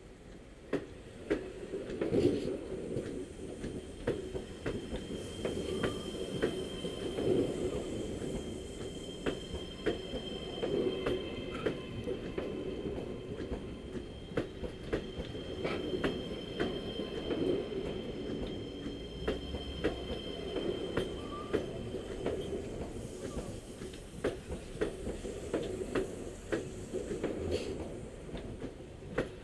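EG2Tv 'Ivolga' electric train rolling slowly past at close range as it pulls in, its wheels clicking irregularly over the rail joints over a steady rumble. A steady high whine runs from about five seconds in until about twenty-two seconds in.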